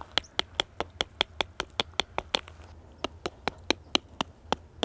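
Rapid, evenly spaced mechanical clicking, about five sharp clicks a second, which pauses briefly about halfway through and then resumes.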